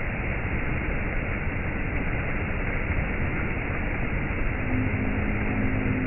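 Shallow stream rushing and splashing over rock ledges in small cascades, a steady even rush of water. Near the end a low steady hum joins in under the water for about a second and a half.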